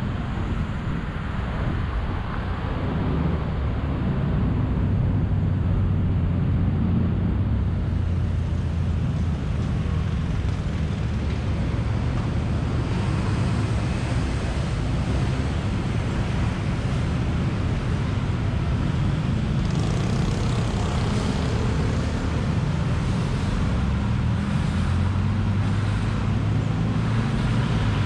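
Steady road traffic noise: a continuous rumble of vehicle engines and tyres, slightly louder after the first few seconds.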